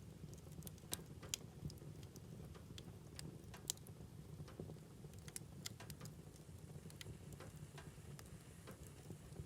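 Wood fire crackling in a fireplace: irregular sharp pops and snaps over a low, steady rumble of the flames, with a few louder pops about a second in and near four seconds.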